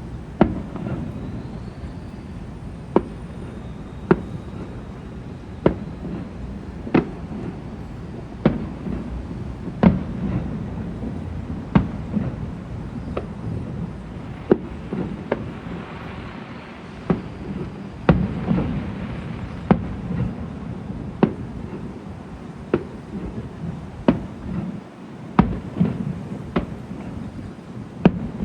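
Fireworks going off: a long run of sharp bangs, roughly one a second at uneven spacing, over a continuous low rumble.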